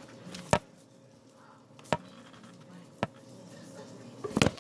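A few sharp, separate taps, then a quick cluster of them near the end: eggs being cracked against a cup.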